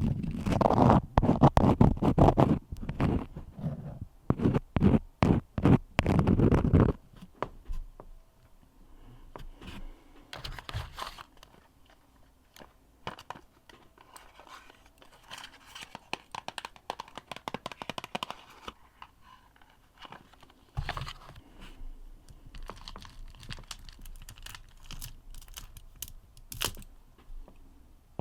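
Crayon strokes scratching and rubbing close to the microphone. For the first seven seconds the strokes are loud and dense with a deep rumble. After that they turn into quieter, scattered scratches and taps.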